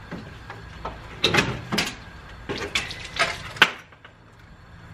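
Irregular knocks and scrapes of an old radiator being worked loose and pulled out of a car's front end, a handful of them over about three seconds with the last one the sharpest.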